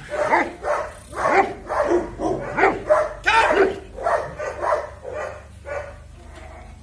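Muzzled golden retriever barking at a decoy in protection training: about a dozen barks in quick succession, growing fainter near the end.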